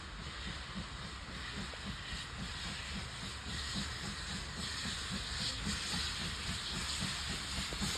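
Steam locomotive Pendennis Castle, a GWR Castle-class four-cylinder 4-6-0, with steam hissing over a rapid, regular low beat. The hiss grows a little louder toward the end.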